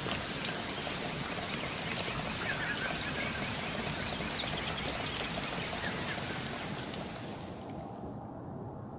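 Outdoor ambience on a forest trail: a steady rushing like running water or rain, with a thin high steady tone and a few short chirps, fading down near the end.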